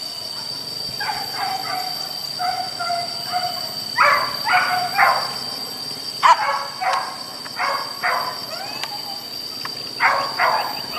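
A pack of leashed hunting dogs barking and yipping in short bursts, several barks close together every second or two, over a steady high-pitched whine.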